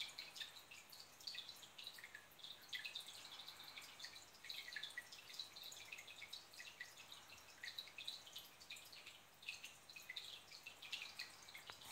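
Faint trickling and dripping of aquarium water: many small, irregular drips throughout, over a faint low hum.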